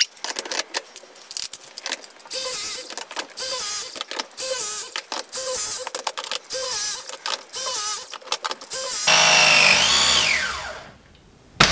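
Battery-powered hydraulic press tool crimping a 20mm multilayer pipe press fitting, after a few clicks as the jaws go on. The tool runs with a regular pulsing for several seconds, then grows louder near the end, its pitch falling away before it stops as the press completes.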